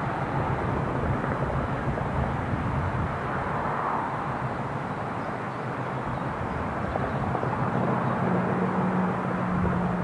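Electric multiple unit running into the station: a steady rumble of the train on the track, with a low steady hum joining from about eight seconds in.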